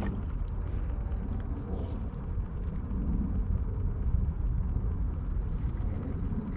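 Wind buffeting the microphone: a gusty low rumble that rises and falls.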